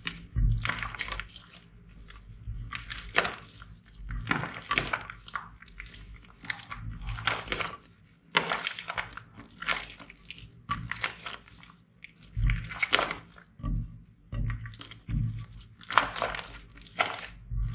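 Slime being squished and pressed by hand, in repeated crackly squishes about once a second.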